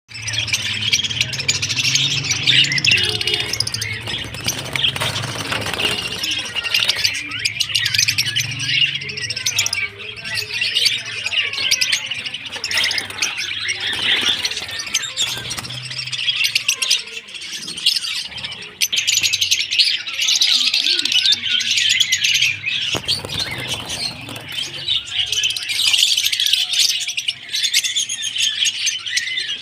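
A mixed aviary of lovebirds, ringneck parakeets and Java sparrows chattering and chirping together, many high calls overlapping without a break. A low steady hum sits underneath for the first half or so.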